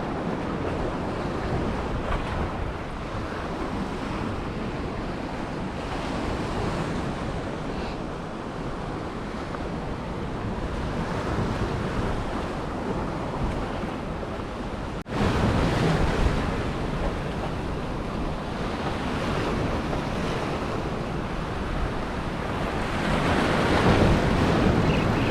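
Waves washing against a rock jetty, with steady wind buffeting the microphone. The sound drops out for an instant about fifteen seconds in and comes back a little louder.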